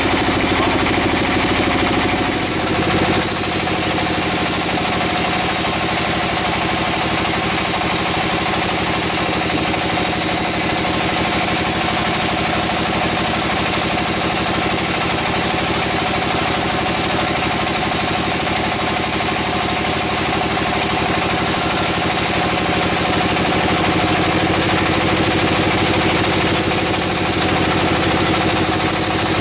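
Band sawmill running, its blade cutting lengthwise through a squared timber: a steady mechanical drone, with a thin high whine that comes in about three seconds in and drops out briefly near the end.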